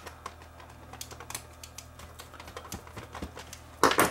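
Small plastic clicks and taps as a camcorder's viewfinder housing is handled and fitted back together, with a louder clatter of knocks near the end.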